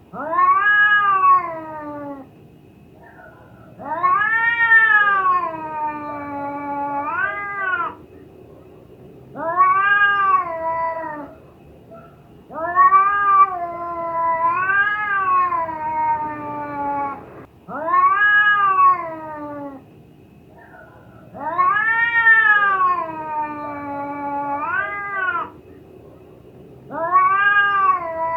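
Domestic cat in heat yowling: about seven long, drawn-out calls with short pauses between, each swelling and falling in pitch, several ending with an upward lift.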